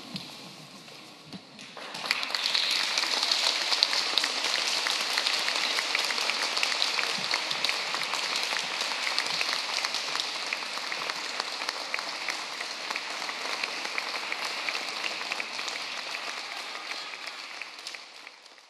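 Audience applauding. It starts about two seconds in and fades away near the end.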